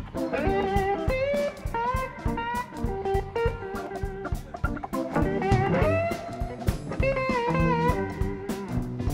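Live blues-rock band playing an instrumental passage: a lead electric guitar solos with bending, gliding notes over drum kit and bass.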